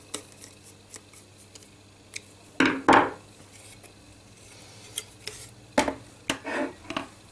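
Handling of a plastic carriage plate with a stepper motor screwed to it: a few faint screwdriver clicks at first, a louder clatter about three seconds in as the plate is turned over, then several knocks near the end as it is set down on the table.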